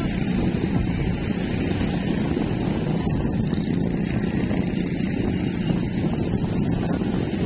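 Wind blowing across the microphone: a steady low rumble.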